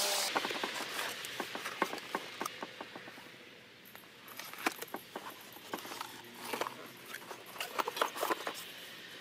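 A cardboard box and its packaging being opened and unpacked by hand: scratching and rustling with a scatter of light clicks and taps.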